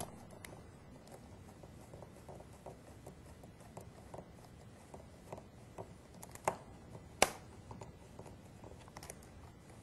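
Faint, scattered small clicks and ticks of a size 0 Phillips screwdriver turning laptop keyboard screws tight, with two sharper clicks a little past the middle.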